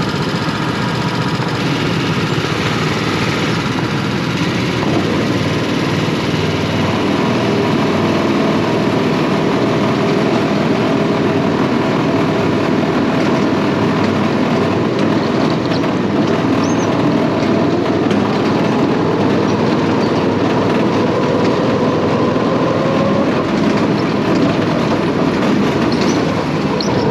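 Go-kart engines running loud and steady as the karts race around the track.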